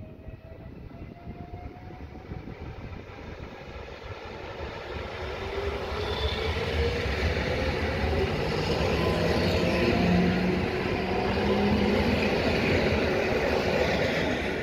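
Electric multiple unit passenger train running past, its wheels rumbling on the rails louder as it nears and loudest about two-thirds of the way in. A whine from its electric drive rises slowly in pitch.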